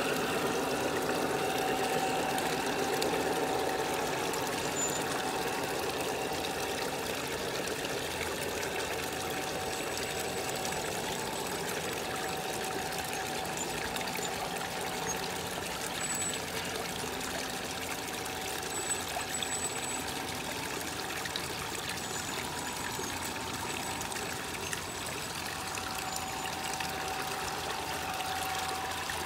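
Small garden rock waterfall pouring and trickling steadily into a pond.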